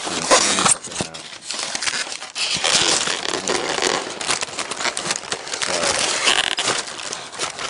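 Styrofoam packing insert being pried and broken apart to free a gun wedged tightly in it: a dense run of crackling and crunching with many sharp clicks.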